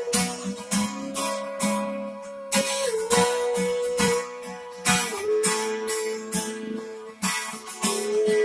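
Acoustic guitar strummed through a song's chords, with a strum every half second to second or so.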